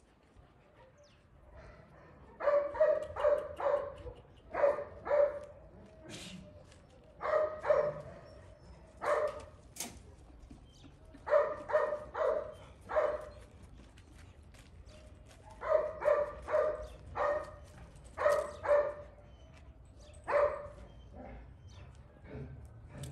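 Dog barking over and over in short runs of two to four barks, starting a couple of seconds in.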